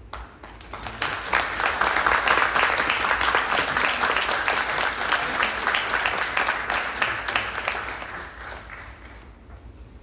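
Concert audience applauding: the clapping builds quickly within the first couple of seconds, holds steady, then dies away near the end.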